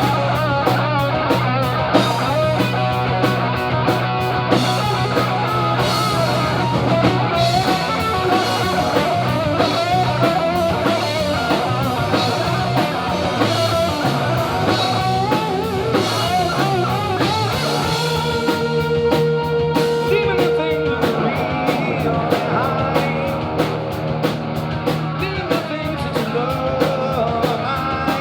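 Rock trio playing: electric guitar carries a lead line with bent, wavering notes over bass guitar and a drum kit. A single guitar note is held for a few seconds a little past the middle.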